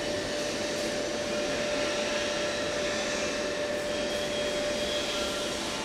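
Steady machine whir with a constant mid-pitched tone running under it.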